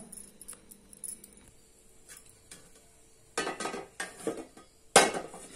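Metal cooking pots and utensils clinking and knocking, ending in a sharp ringing clank of a metal pot about five seconds in.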